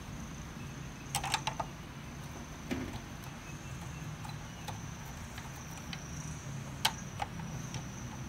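Light plastic clicks and taps as gloved hands handle a smoke absorber's plastic housing and filter grille: a quick cluster of about four clicks a little after a second in, one more near three seconds, and two near the end. Under them a steady low hum with a faint high-pitched whine.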